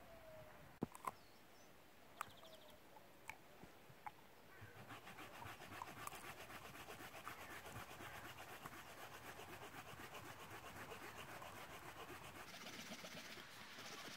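Folding saw cutting dead hardwood with quick, even back-and-forth strokes, faint and rhythmic, starting about four or five seconds in after a few light knocks.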